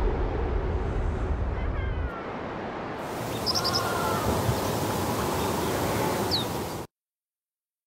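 Steady outdoor background noise with a few short, chirping animal calls, cutting off abruptly about a second before the end.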